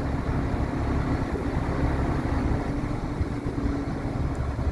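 Truck's International DT466E diesel engine running steadily while the Cleasby conveyor's belt runs, a steady low rumble with a droning hum that drops away near the end.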